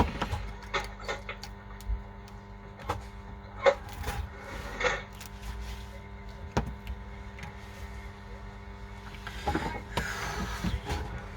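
Scattered small clicks, taps and knocks of hands handling small objects on a work surface, with a brief scraping rustle near the end, over a steady low electrical hum.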